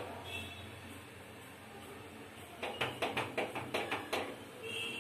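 Wooden stirring stick knocking and scraping against the side of an aluminium pot as ragi flour is stirred into boiling water, with a quick run of knocks a little past the middle, over a steady low hum.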